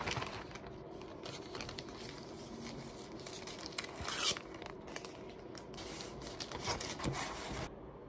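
Clear plastic packaging crinkling and rustling as it is handled, with a brief louder rustle about four seconds in. The rustling cuts off abruptly near the end.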